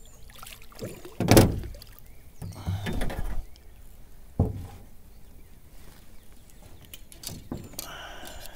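Knocks and bumps on an aluminium jon boat's hull and floor as someone shifts about in it: a loud thump about a second in, a scraping rustle, then a sharp knock and a lighter one later.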